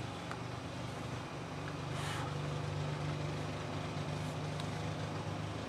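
An engine running steadily with a low hum. About two seconds in, a short scratchy rub, the sound of a drawing stick shading on paper.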